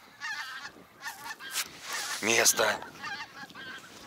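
Wild geese honking in flight overhead, a string of short repeated calls.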